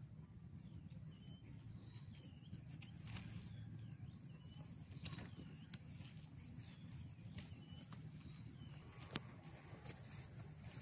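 Small birds chirping faintly and repeatedly over a low steady rumble, with a few light clicks and one sharper click about nine seconds in.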